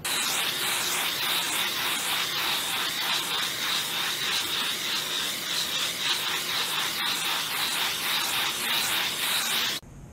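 Handheld gas torch hissing steadily as its flame is swept over a fresh epoxy coat to pop air bubbles; the hiss cuts off abruptly near the end.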